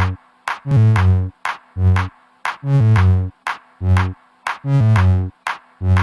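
Electronic background music: drum machine and synthesizer playing short, chopped chord stabs with bass, about two a second.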